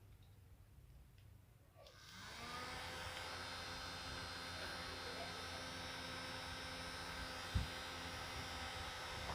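A small electric motor starts about two seconds in, spinning up in pitch and then running steadily with a whirring hum; a single short knock partway through.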